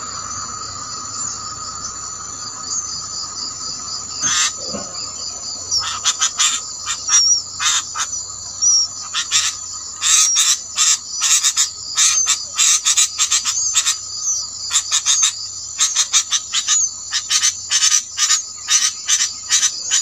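Steady high-pitched insect chorus with a fainter steady lower tone. About six seconds in it is joined by irregular runs of short, rasping clicks that come thicker toward the end.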